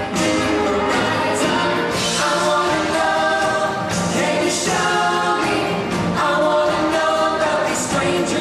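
Stage-show music played loud, with a group of voices singing together over the band.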